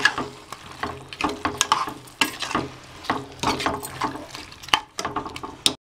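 Spatula scraping and knocking against the sides of an aluminium pressure cooker as chicken masala is stirred, with a light sizzle of the chicken frying in its own released juices. The sound cuts off suddenly just before the end.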